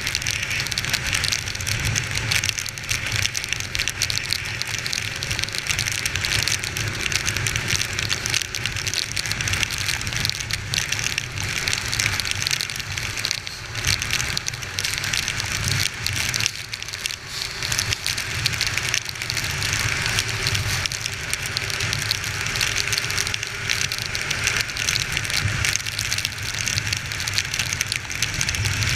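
Steady hiss of heavy rain and wind, heard from a moving motorcycle, over the low running of a Honda XR 250 Tornado's single-cylinder engine.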